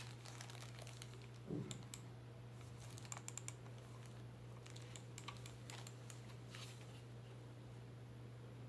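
Keys of a Womier K66 mechanical keyboard being pressed: scattered, irregular key clicks, a quick cluster about three seconds in, and one duller knock about a second and a half in. A steady low hum runs underneath.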